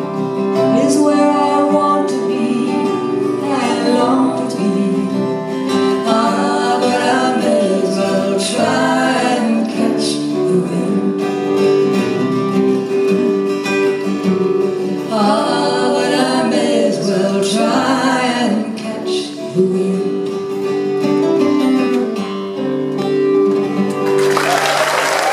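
Live acoustic folk song: strummed acoustic guitars with female voices singing held, wordless-sounding lines. Near the end the song closes and audience applause breaks out.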